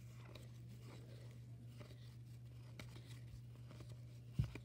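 Faint rustle and light clicks of cardboard baseball cards slid past one another as a stack is thumbed through by hand, with a single low thump near the end.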